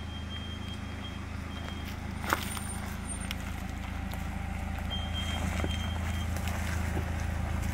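Mitsubishi Pajero TR4 engine running at low speed as the SUV crawls up a rough dirt trail, a steady hum growing louder as it approaches. One sharp click about two seconds in.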